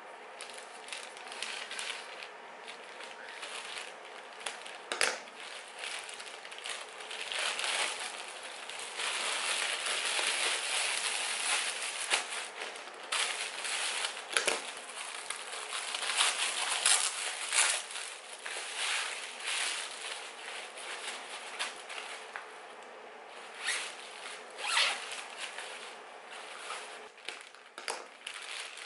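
Plastic packaging being handled and unwrapped by hand: rustling and crinkling plastic wrap and courier mailers, with scattered sharp clicks and rips, loudest in the middle stretch.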